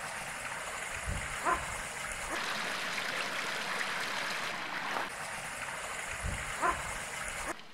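Water pouring and rushing from a spillway into a trout-farm raceway, a steady splashing flow. Two brief rising animal cries cut through it, about a second and a half in and near the end.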